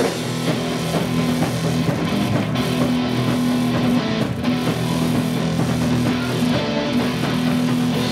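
Rock music with guitar and drum kit.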